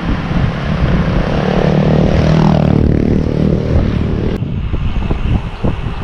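Wind rushing over the microphone of a camera on a moving bicycle, with a motor vehicle's engine passing close by and swelling about two to three seconds in. The sound changes abruptly just over four seconds in.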